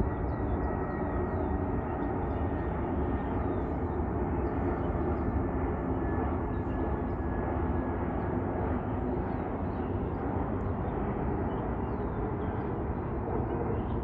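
Jet airliner's engines running steadily as it flies by, a faint whine slowly falling in pitch over the engine noise.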